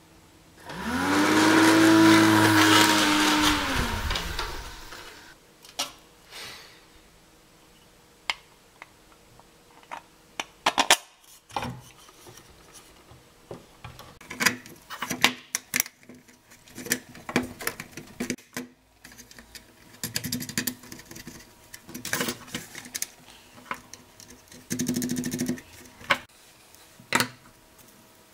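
A 12 V car fan propelling a model maglev train along its neodymium-magnet rail, loud for about four seconds, with a whine that rises and then falls away. After that, scattered clicks and knocks of acrylic plates and small parts being handled on a wooden workbench.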